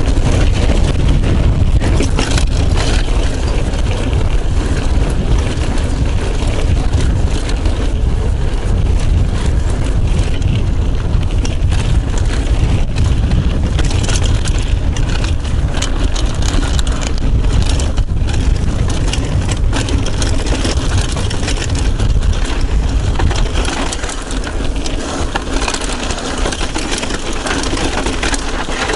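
Mountain bike ride noise on a chest-mounted action camera: low wind buffeting on the microphone and tyre rumble on the dirt trail, with scattered clicks and rattles from the bike over rocks.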